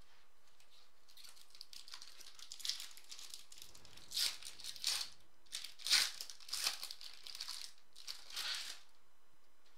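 Foil trading-card pack wrapper of 2015 Topps Chrome football being torn open and crumpled by hand: a run of crinkling and crackling, with several louder rips and crackles through the middle and near the end.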